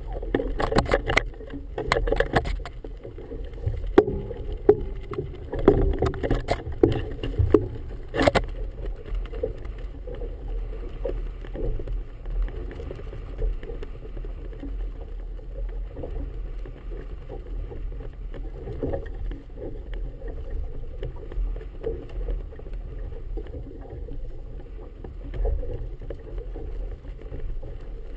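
Choppy water slapping against a moored boat's hull, with a steady low rumble of wind on the camera. A run of sharp knocks and clatters sounds over the first eight seconds or so, then fades to just the water and wind.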